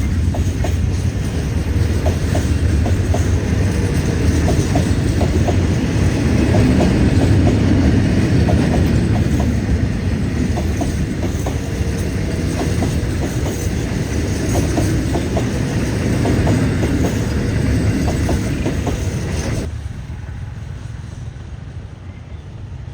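Train rolling past, a steady low rumble with wheels clicking over rail joints; the sound drops abruptly near the end and then fades.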